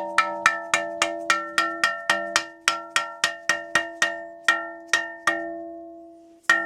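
Hammer tapping a bushing into a steel motorcycle swing arm, about four quick strikes a second, each one setting the hung-up swing arm ringing like a bell. The tapping stops a little after five seconds, the ring fades, and it starts again near the end.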